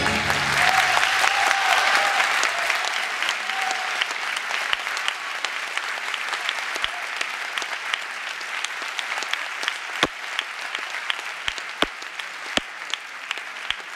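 Audience applauding, the clapping slowly thinning and getting quieter, with single close claps standing out sharply in the last few seconds.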